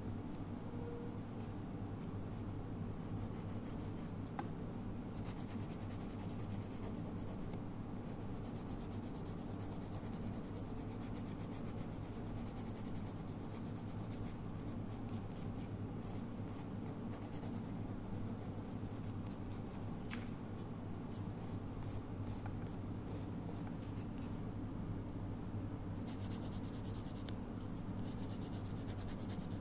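Hand nail file rasping back and forth over fingernails in quick strokes, in runs that stop and start: cured polygel nails being filed into shape. A steady low hum runs underneath.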